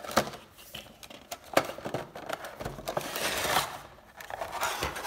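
Cardboard box and clear plastic insert being handled as a Funko Pop box is opened: a few sharp clicks and taps, and a longer rustling scrape about halfway through as the plastic tray slides out of the box.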